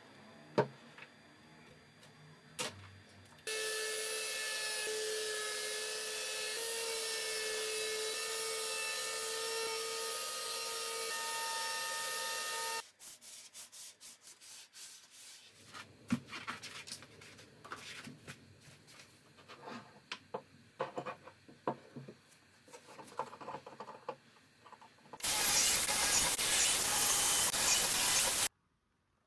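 An electric palm sheet sander runs steadily on a pine 2x4 table frame for about nine seconds, with a humming tone over the hiss of the paper, then stops. Scattered rubbing and light knocks on the wood follow. Near the end, a cordless drill-driver drives a pocket-hole screw for about three seconds.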